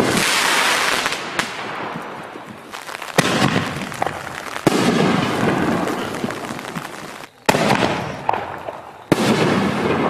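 5-inch canister aerial shells going off one after another: about five sharp bangs, a second or two apart, each trailing off slowly.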